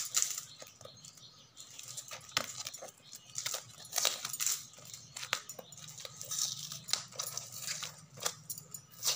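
Hands handling and picking at a small parcel wrapped in packing tape: irregular crinkles, taps and scratches of fingers on the taped wrapping.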